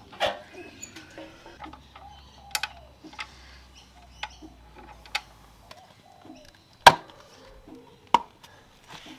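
Irregular clicks and knocks of motorcycle body panels and their fasteners being refitted by hand. The loudest sharp knock comes about seven seconds in, with another a second later.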